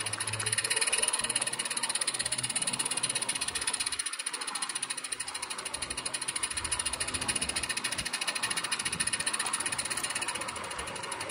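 16mm-scale Roundhouse live-steam model of a Vale of Rheidol locomotive under way, its exhaust beating in a rapid, even chuff.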